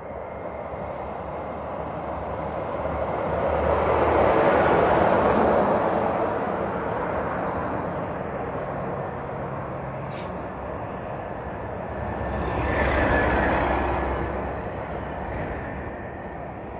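Heavy trucks going past on the road, engine and tyre noise swelling and fading as one passes about five seconds in and another about thirteen seconds in.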